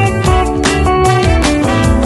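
Background music: an upbeat instrumental track with bass and a steady drum beat.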